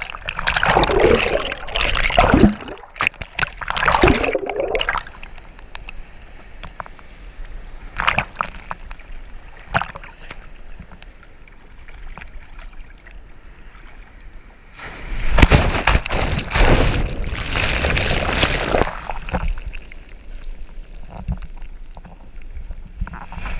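Sea water in the surf sloshing and splashing right against the microphone, coming and going in washes, with a loud rush of broken, foaming wave water about two-thirds of the way through.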